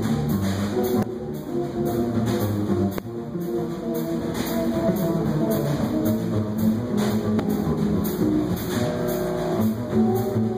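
Live jazz trio of guitar, upright double bass and drum kit playing a samba.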